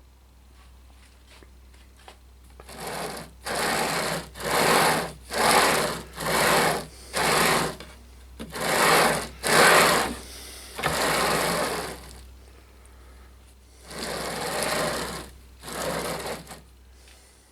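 Linear-rail carriages rolling as the wooden router table is slid back and forth by hand along the rails. It makes about eleven short rushing strokes, each under a second, at an uneven pace, with a gap near the end.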